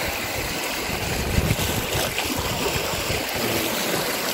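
Wind buffeting the microphone in irregular low rumbles over a steady hiss of sea waves washing against rocks.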